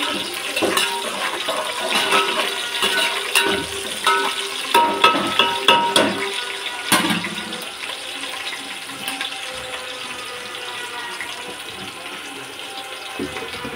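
A metal utensil clinking and scraping against a cooking pot, with short ringing tones, for about the first seven seconds. Then a steady, quieter hiss.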